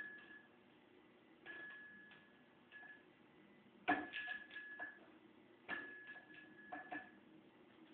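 Faint metal clicks and clinks, several ringing briefly, from handling the camshaft and its retaining-plate screws and tools; the loudest come about four seconds in and again near six seconds.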